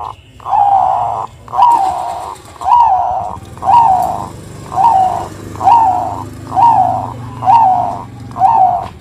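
Zebra dove (perkutut) giving a steady series of short, rough cooing notes, about one a second, each rising quickly and then dropping in pitch.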